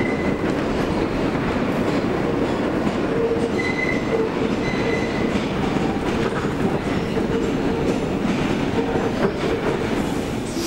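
Kawasaki R143 subway car heard from inside while running along the track: a steady rumble of wheels on rail with clacking over the rail joints, and two brief high wheel squeals about four and five seconds in.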